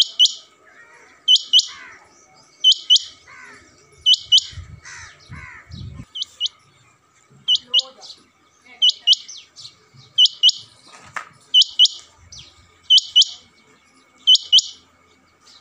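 Male rain quail calling: sharp, high double notes repeated about every one and a half seconds.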